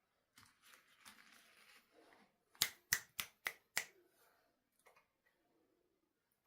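Rustling from handling, then five sharp clicks in quick succession, about three a second, and a single sharp click near the end.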